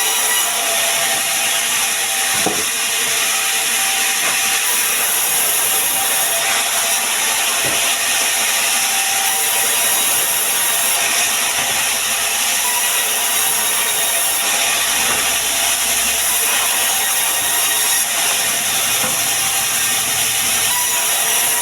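Sawmill saw cutting pine wood: a steady, loud, high-pitched hiss of the blade in the wood, with a couple of faint knocks.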